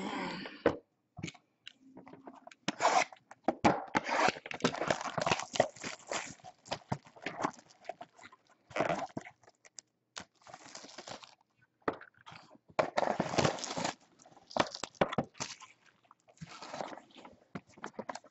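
A Topps Tier One baseball card hobby box being opened by hand: irregular bursts of tearing, crinkling and rustling of the box's wrapping and cardboard, and of its foil pack being handled, with short pauses between.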